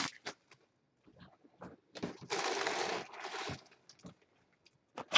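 Plastic shrink wrap rustling as it is crumpled and handled, a rustle of about a second near the middle, with a few light taps and clicks before and after it.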